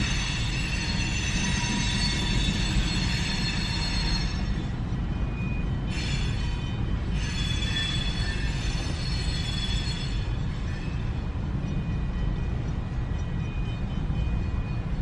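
Freight train rolling past over a level crossing: a steady low rumble, with long high-pitched metallic squealing from the cars' wheels in the first four seconds and again from about six to ten seconds in.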